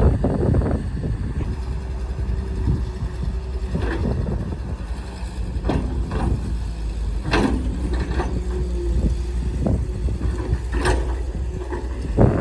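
Heavy diesel earthmoving machinery running, a steady low engine rumble with several sharp irregular clanks and knocks.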